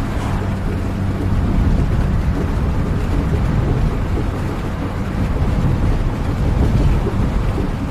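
Steady rain with a low, continuous vehicle engine drone underneath, as heard while travelling.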